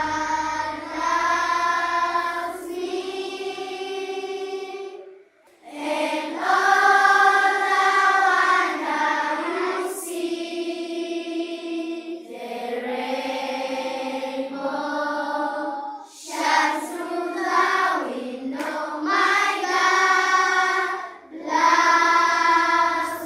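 Children singing together as a choir, in unison, holding long notes in phrases with short breaks between them.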